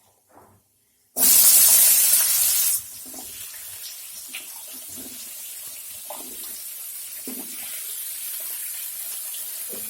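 Cut vegetables (potato, taro, radish, carrot) tipped into hot mustard oil in a kadai: a loud burst of sizzling about a second in that drops after a second and a half to a steady frying sizzle, with a few light knocks.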